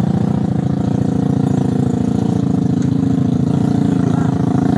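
Small motorcycle engine running steadily at low revs close by, with rapid, even firing pulses.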